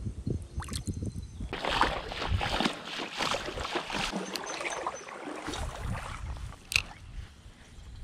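Wading boots splashing and sloshing step after step through shallow creek water, with a single sharp click near the end.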